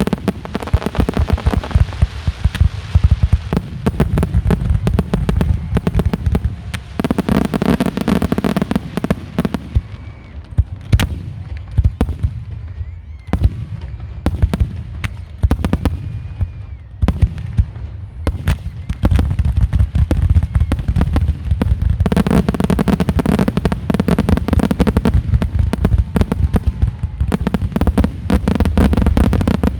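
Aerial fireworks going off in a rapid, near-continuous barrage of shell bursts and bangs, heaviest in a stretch about a quarter of the way in and again through the last third.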